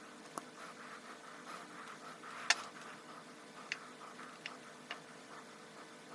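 Faint, scattered small clicks and taps, about five of them, the loudest a sharp click a little past two seconds in, over a faint steady hum: handling noise from soldering-iron work on wires, the iron tip being rubbed along heat-shrink tubing.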